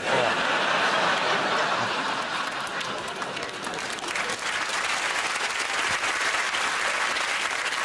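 Studio audience applauding, breaking out suddenly and going on steadily.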